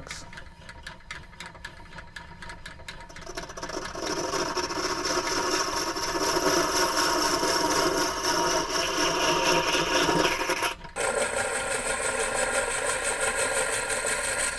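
Foot-powered treadle lathe, built on an old treadle sewing machine base, spinning a wooden dowel in a metal chuck, its mechanism ticking and rattling. From about four seconds in a skew chisel cuts the spinning dowel: a steady, louder scraping of wood being shaved, broken off briefly about eleven seconds in, then resuming.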